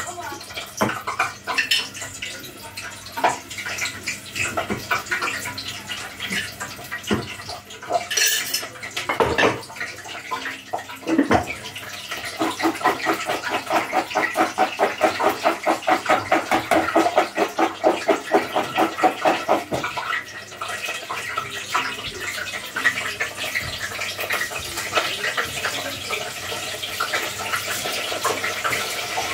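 Cauliflower florets shaken in a plastic bag to coat them with salt: scattered rustles and knocks at first, then a fast, even rhythmic shaking of about four strokes a second in the middle, followed by a steady hiss.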